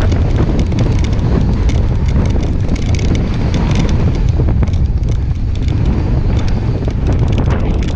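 Wind buffeting a handlebar-mounted camera's microphone on a mountain bike riding downhill, over a steady rattle of knocks and clatter from the bike on a rough dirt trail. About three to four seconds in, the clatter sharpens as the tyres roll over wooden planks.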